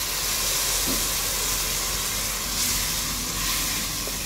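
About a cup of water just added to hot oil and vegetables in a large steel cooking pot, sizzling and hissing steadily as it boils off.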